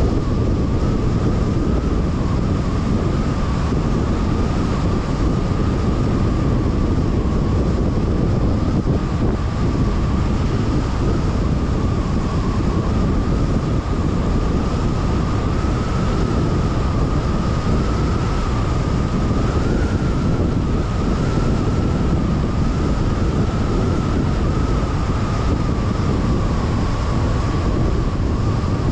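Steady road and tyre noise of a car driving at speed, with a thin whine held at about one pitch over it.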